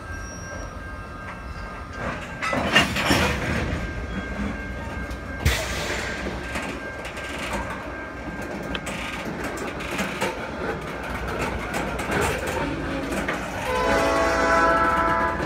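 Freight hopper cars rolling slowly on yard track, wheels clicking and clanking over the rail, with two louder clanks about 3 and 5.5 seconds in. Near the end a locomotive horn starts sounding.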